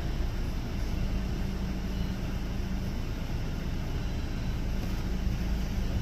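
Distant Boeing 737-800's CFM56-7B jet engines running at low thrust as the airliner taxis and turns on the runway: a steady rumble with a low hum.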